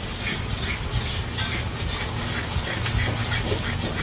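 A metal spatula scraping and stirring around an iron kadai in a few quick strokes a second, with hot oil and spices sizzling under a steady low hum.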